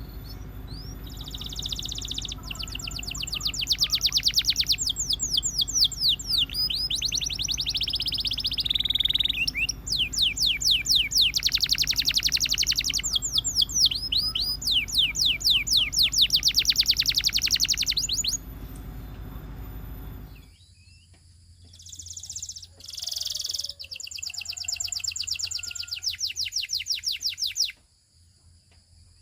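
Canary singing in long runs of rapid trills, each made of fast repeated sweeping notes, pausing for a few seconds past the middle before a final run. A low steady hum behind the song stops suddenly about twenty seconds in.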